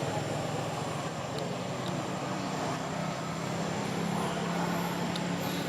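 A motor vehicle's engine running with a steady low hum over outdoor background noise.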